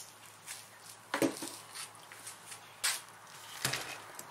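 A few short, light metallic clinks and knocks, about three of them spread unevenly, as metal parts and an A/C compressor are handled on a workbench.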